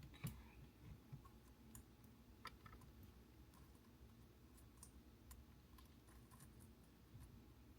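Near silence with a few faint, scattered clicks and ticks, as small parts are handled in the steering column area.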